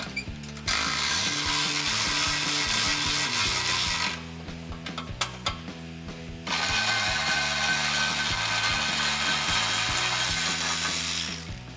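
Battery-powered driver spinning a 13 mm socket on a long extension, running twice for several seconds each: it is undoing the two bolts that hold the F-150's factory resonator and inlet pipe. Background music plays underneath.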